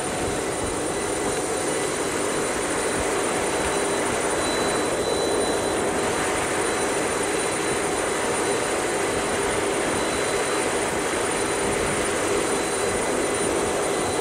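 Helicopter's turbine engines and rotor running steadily at high power on the ground, held down by anchors during a tethered strength test. A dense, even roar with a steady high whine on top.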